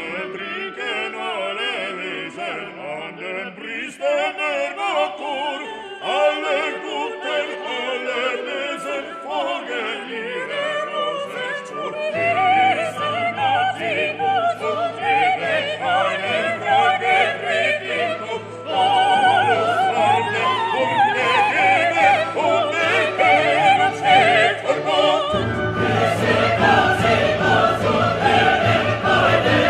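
Background music: operatic singing with orchestra, growing louder and fuller partway through.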